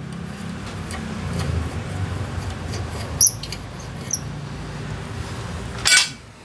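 Socket wrench working a bolt under a Haojue USR125 scooter: light metal clicking and scraping of steel tools, two sharp metallic clinks about three and four seconds in, and a louder clank near the end.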